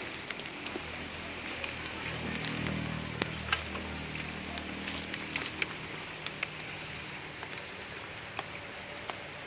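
Rain falling: a steady hiss with scattered sharp taps of drops. A faint low hum swells briefly between about two and five seconds in.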